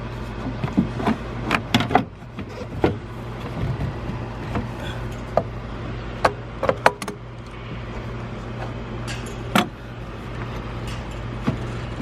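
Scattered sharp clicks and knocks of hands and pliers working coolant hoses off a plastic degas bottle in an engine bay, over a steady low hum.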